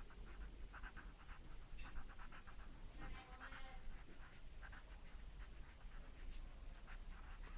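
Pencil scratching on lined notebook paper in many quick, short strokes.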